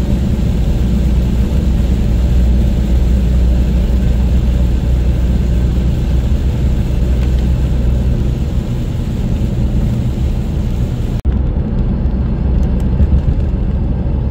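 Steady engine drone and road noise inside a moving vehicle, with tyre hiss from the wet road surface. About eleven seconds in the sound changes abruptly: the hiss drops away and the low drone carries on.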